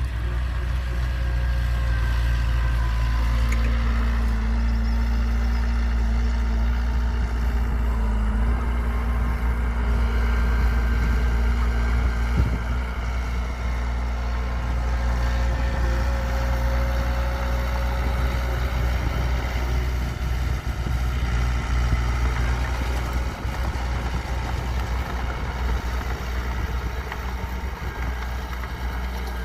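Heavy diesel engine of earthmoving machinery running steadily, with a low rumble.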